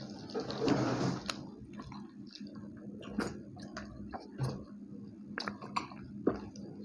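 People chewing mouthfuls of fried puri and haleem, with wet mouth sounds and scattered small clicks. A louder noisy stretch comes in about half a second in and lasts under a second.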